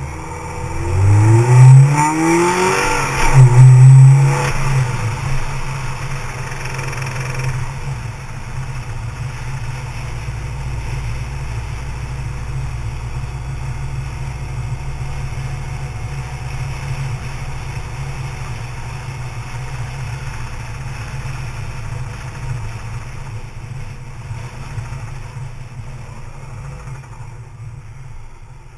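2004 Subaru Liberty/Legacy's naturally aspirated EJ25 2.5-litre flat-four engine revved up twice in the first few seconds, then dropping back to a steady idle for the rest. This is the lift-off from high revs where the owner hears a knocking noise.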